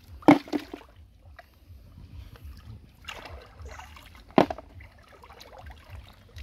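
Hands splashing and sloshing in shallow flowing stream water while feeling along the muddy bottom for snails, with small scattered splashes and two short sharp splashes, one near the start and one about four seconds in.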